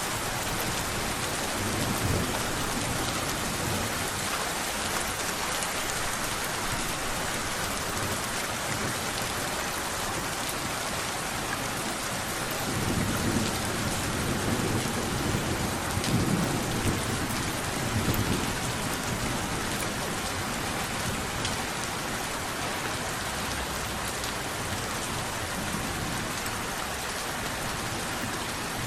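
Steady rain falling in an even hiss, with low thunder rumbling for several seconds around the middle.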